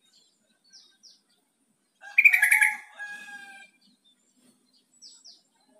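Yellow-vented bulbul singing: a loud, bubbly phrase of several notes about two seconds in, lasting about a second and a half. Before and after it come pairs of short, high, down-slurred chirps.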